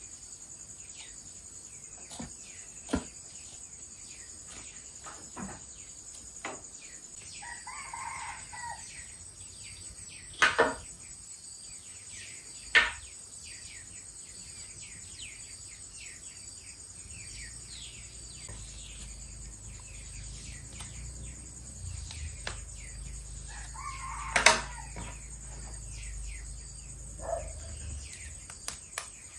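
A rooster crows twice, once about eight seconds in and again about twenty-four seconds in, over a steady high-pitched drone of insects. A few sharp clicks or knocks stand out, the loudest just as the second crow sounds.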